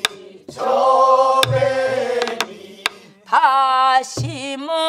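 A group of voices singing a line of a Korean Namdo folk song together to the beat of buk barrel drums: deep drum thumps and sharp stick clicks on the drum rims. After about three seconds a woman's solo voice takes over, singing with wide, wavering vibrato.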